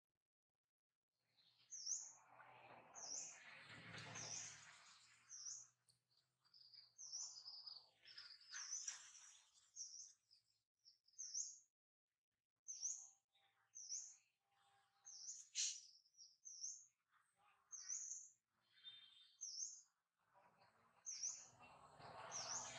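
A small bird chirping over and over, short high chirps about once a second, faint, with a few bursts of hissing noise beneath.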